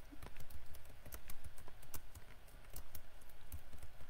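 Typing on a computer keyboard: a quick, irregular run of key clicks as a short phrase is typed.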